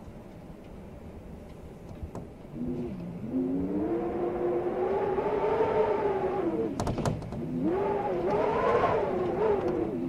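Blizzard wind howling in gusts: a wavering, moaning pitch that swells about two and a half seconds in and rises and falls. It dips briefly with a few sharp clicks about seven seconds in, then swells again.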